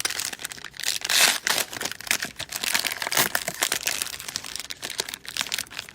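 Crinkling and rustling of plastic trading-card wrappers and sleeves being handled, in quick irregular crackles with a louder burst about a second in.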